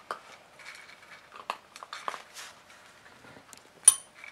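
A desk service bell dings once near the end, pressed by a puppy's paw: a single sharp strike with a short high ring. Before it, faint scattered clicks and rustles.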